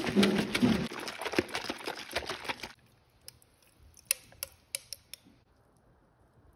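Coffee poured from a bottle over ice cubes in a glass mason-jar mug, splashing and gurgling, stopping suddenly a little under three seconds in. After that, scattered faint clicks and crackles as the ice settles and cracks in the cold drink.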